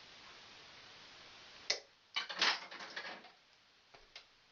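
Light metallic clicks and rattles of copper wire and wire connectors being handled at a metal switch box: a sharp click just under two seconds in, a short cluster of rattles right after, then a couple of faint ticks near the end.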